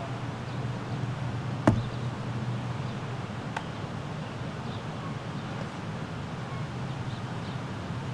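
A steady low hum over outdoor background noise, with a sharp click about a second and a half in and a fainter click about two seconds later.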